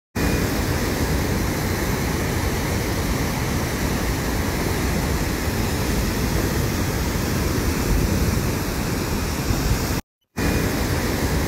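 Steady, loud rushing of a muddy flash-flood torrent, with a brief break about ten seconds in.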